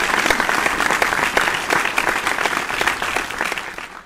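Crowd applauding, dense fast clapping that fades out near the end.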